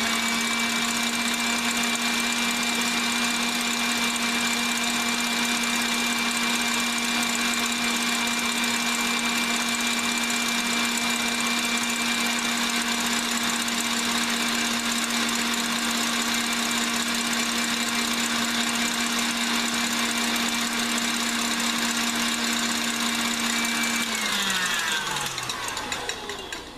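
KitchenAid Classic Plus stand mixer running, its wire whip beating egg whites into meringue: a steady motor hum with a high whine. Near the end it slows, falling in pitch, as it is switched off.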